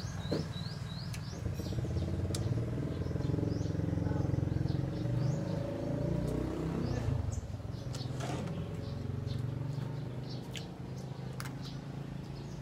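A motor vehicle's engine running past as a steady low drone that swells about four seconds in and fades by about ten seconds. A bird chirps rapidly in the first second, and scattered small clicks come through.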